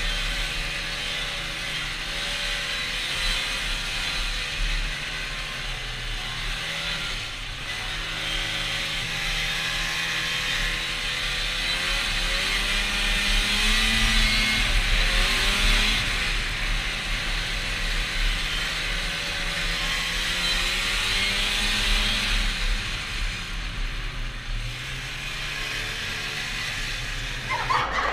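1992 Polaris Indy Lite 340 snowmobile's two-stroke engine running under way, its pitch rising and falling with the throttle, over a steady rushing hiss.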